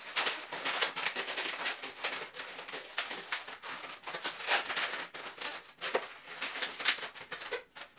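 Latex modelling balloons rubbing and squeaking against each other and the fingers as the twisted petals of a balloon flower are pushed into place: a dense, uneven run of short squeaks and crackles.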